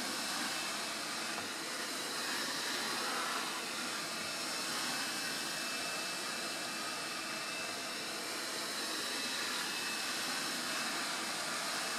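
Hot-air rework station's heat gun blowing a steady, even rush of hot air as it is swept over a MacBook's display glass, heating the double-sided tape underneath to loosen it.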